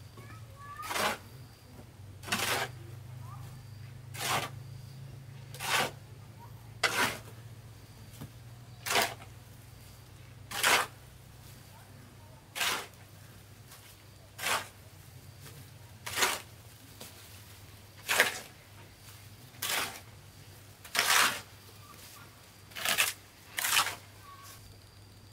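Steel hoe scraping through wet cement mortar on a concrete floor as it is mixed by hand, about fifteen short strokes every one and a half to two seconds.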